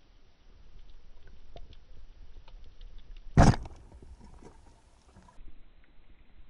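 Underwater speargun shot: one sharp, loud bang about three and a half seconds in, over a faint background of scattered small clicks and low water hiss.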